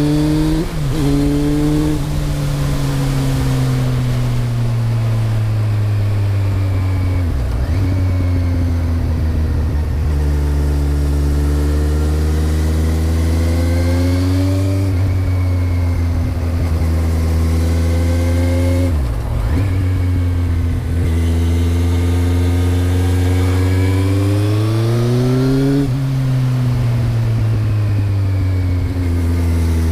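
2008 Kawasaki Z1000's inline-four engine through a Mivv GP exhaust with the dB killer fitted. The engine note rises and falls slowly over several seconds, with a few short dips along the way.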